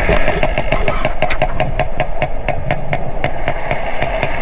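Sperm whale clicking: a long series of sharp, evenly spaced clicks, about six a second, over a steady low background rumble.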